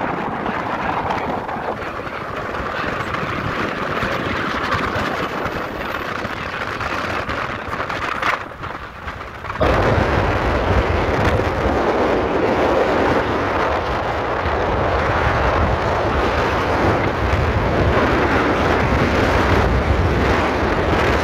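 Road and wind noise of a moving vehicle, heard from inside it while driving. About halfway through, after a brief dip, it turns suddenly louder and deeper, a steady rumble of wind on the microphone.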